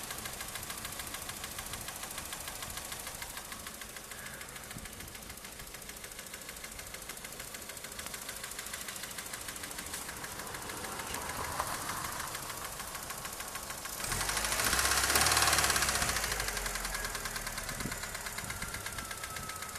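Daewoo Nexia four-cylinder petrol engine running with a rapid, even tapping knock, which the owner cannot trace to its source. About fourteen seconds in, the sound swells louder for a couple of seconds and then settles back.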